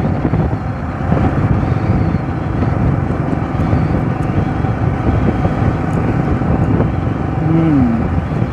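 Yamaha R15 V3's 155 cc single-cylinder engine running steadily while cruising in sixth gear, mixed with wind rushing over the microphone. A short falling tone is heard near the end.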